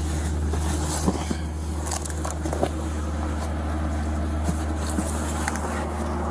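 Rustling, crackling and light knocks as gloved hands move a blanket and cardboard boxes in a truck cab, over a steady low engine-like hum.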